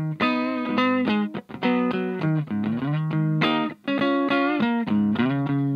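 Electric guitar played through a 2-watt Little Rebel amp kit into a Jensen CR8 speaker. It plays picked single-note phrases with a slide in pitch about halfway through.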